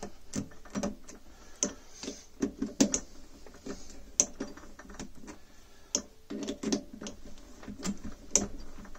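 Hand threading die cutting an M6 thread on a steel rod held in a lathe chuck, the die stock worked back and forth in short turns: irregular clicks and brief scrapes, several a second.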